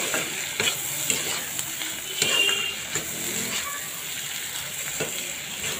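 A metal spatula stirring and tossing fish-belly pieces, capsicum and onion frying in oil in a black kadai, with a steady sizzle and sharp clacks of the spatula against the pan every second or so.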